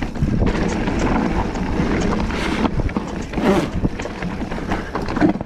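Mountain bike rolling fast down a rough, rocky trail: tyres on rock and roots, with the bike's chain and frame rattling at many small knocks, and wind buffeting the microphone.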